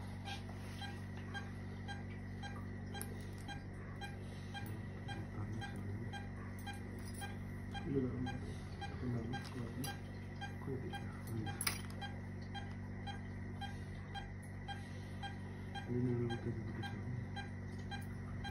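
Patient monitor beeping in a steady rhythm, keeping time with an anaesthetised dog's heartbeat, over the constant hum of equipment. Brief low murmurs twice, and a single sharp click of metal instruments about midway.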